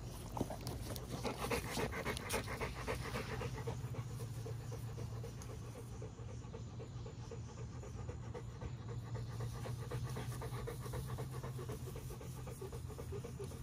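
Large pit bull panting rapidly and steadily with its mouth open.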